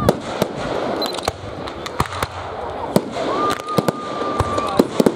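Fireworks display: aerial shells bursting with a series of sharp bangs over a continuous noisy background, the bangs coming quicker together near the end.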